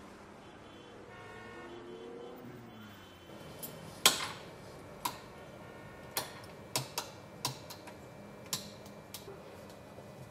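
A run of sharp clicks and light knocks, starting about three and a half seconds in, the first the loudest. They come from the push switch on the base of a library desk lamp being pressed again and again, and from items being set down on the desk. The lamp does not come on because the desk's electricity is off.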